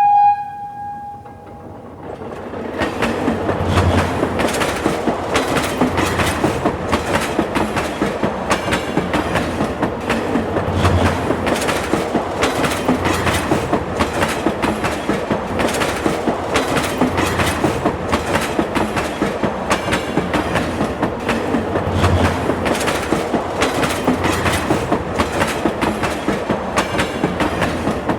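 A train's wheels running over rail joints: a steady, rapid clickety-clack of the passing carriages that builds up about two seconds in and keeps on at an even level. At the very start a brief single-pitched horn note sounds and fades.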